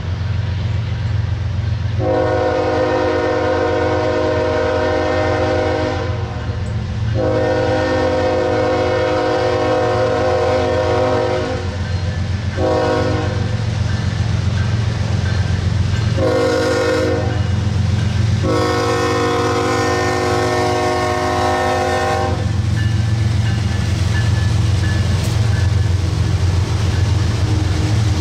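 Diesel freight locomotive's multi-chime air horn sounding the grade-crossing signal: two long blasts, a short one, then a final long one with a brief break in it. Under the horn the locomotive's diesel engines rumble steadily.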